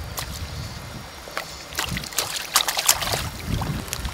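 Muddy creek water sloshing and splashing around a person wading as a water plant is dug out and pulled up by its roots, with a quick run of sharp splashes in the second half over a steady low rumble.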